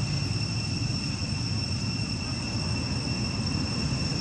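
A steady, unbroken high insect drone, such as crickets or cicadas, over a louder low rumble.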